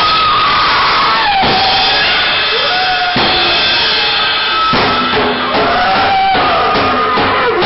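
Loud noise-rock jam: a drum kit played hard under a dense wall of distorted noise from an electric guitar run through effects pedals. High tones slide up and down through the noise, and it breaks off abruptly several times.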